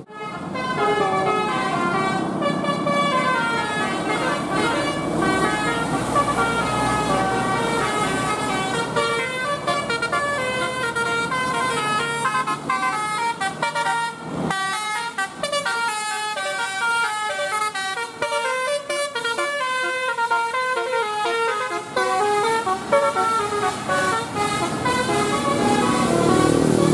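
Bus 'telolet' multi-tone horn playing a tune as a quick run of short, stepped horn notes.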